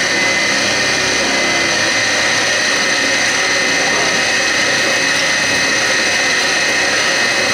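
Grizzly G0704 milling machine, CNC-converted, running a quarter-inch four-flute solid carbide end mill through aluminum plate: a steady whine with the even rasping noise of the cut.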